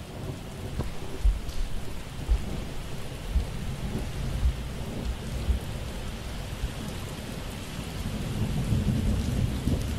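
Steady rain with rumbling thunder: a storm ambience. A few low thuds land about once a second in the first half, and the low rumble swells near the end.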